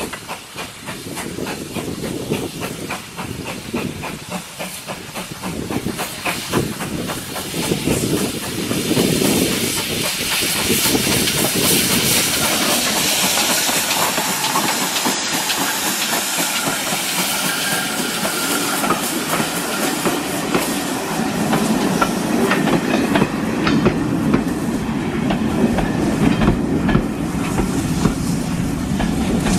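GWR Large Prairie 2-6-2 tank locomotive No. 5199 approaching and passing close with steam hissing, growing louder as it nears and loudest as the engine goes by about halfway through. Its coaches then run past with a steady rumble and clicking over the rail joints.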